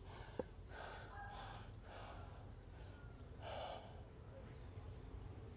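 Faint outdoor ambience: a steady, high-pitched insect drone, with a few short faint calls over it about one to two seconds in and again near the middle.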